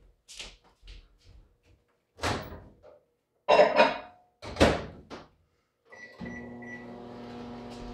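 Microwave oven door opened and shut with a couple of sharp clunks, a few short keypad beeps, then the microwave starting up about six seconds in and running with a steady electrical hum.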